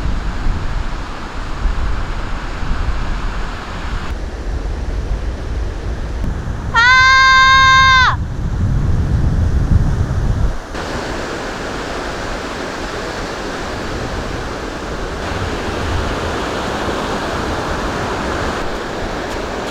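Sea waves washing on the shore, with wind rumbling on the microphone for the first half. About seven seconds in, a single steady horn-like tone sounds for just over a second.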